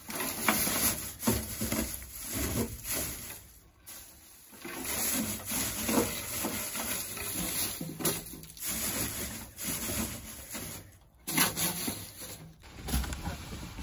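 Dry straw rustling and scraping against wood as handfuls are stuffed into wooden nesting boxes, in uneven spells with a couple of brief pauses.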